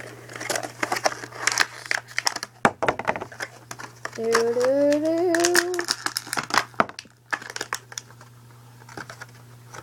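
Toy packaging crinkling and clicking as a figure is worked out of it, in quick irregular crackles. A short hummed vocal sound comes in the middle.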